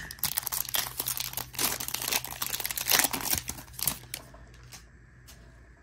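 Foil wrapper of a Prizm football trading card pack being torn open and crinkled by hand, a dense crackling that stops about four seconds in, leaving a couple of faint clicks.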